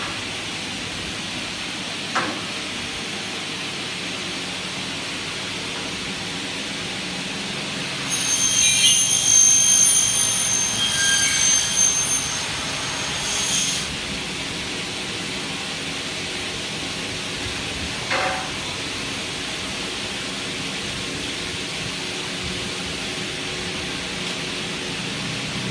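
Double-head aluminium cutting saw running, with a steady mechanical hiss. From about 8 to 14 seconds a loud, high-pitched ringing whine rises over it as the blades cut through aluminium. A short knock comes about 2 seconds in and another about 18 seconds in.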